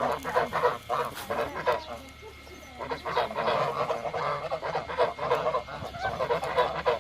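A flock of domestic ducks quacking noisily in quick, overlapping calls, with a brief lull about two seconds in.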